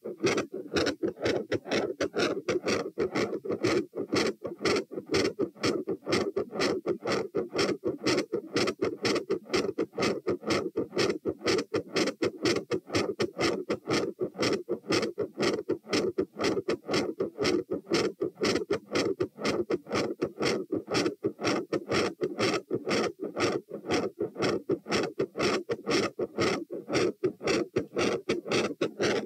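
Human heartbeat heard through a stethoscope at the tricuspid listening area: a regular, quick lub-dub, several heart sounds a second, loud.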